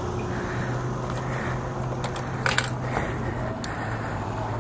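Motorcycle engine idling steadily, with a few sharp clicks over it, the clearest about two and a half seconds in.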